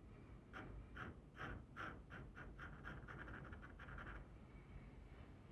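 Faber-Castell Pitt pastel pencil tip tapping little dots onto Pastelmat paper to build texture. The taps are faint and separate at first, then come in a quick run that stops about four seconds in.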